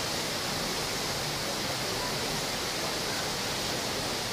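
Düden Waterfall pouring over a rock ledge into its pool: a steady, unbroken rush of falling water.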